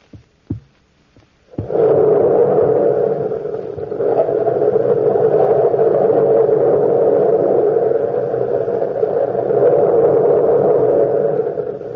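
A radio-drama sound effect on a 1940s broadcast recording: a few faint thumps, then about a second and a half in a loud, sustained rushing rumble with a low hum in it that does not let up.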